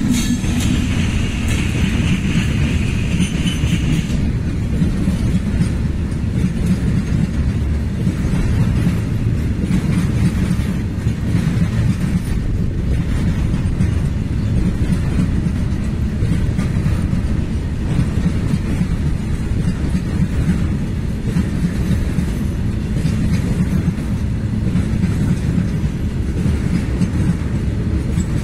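A long freight train of tank wagons rolls past behind an Indian Railways WAG-9 electric locomotive, with a steady low rumble and a clickety-clack of wheels over rail joints. A higher hiss from the passing locomotive stops about four seconds in.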